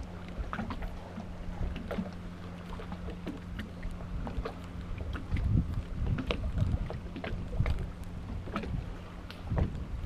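A small boat sitting on the water: scattered knocks and light slaps against the hull, with a steady low hum that cuts off about nine and a half seconds in.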